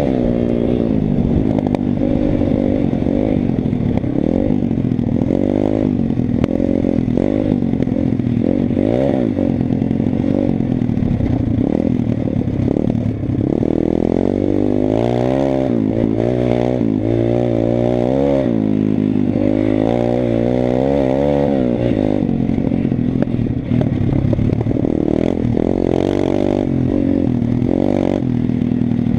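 Pit bike engine revving up and down as the bike is ridden hard off-road, its pitch rising and falling with throttle and gear changes, with several quick climbs in pitch about halfway through. Heard from a helmet-mounted action camera.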